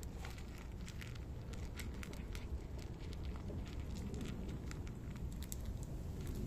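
Cats crunching dry kibble from a shared bowl: rapid, irregular crisp crunches over a low steady rumble.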